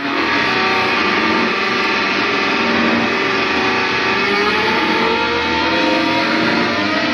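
Electric guitar played through effects, holding a dense, steady wash of sustained tones, with one pitch sliding slowly upward in the second half and rising faster near the end.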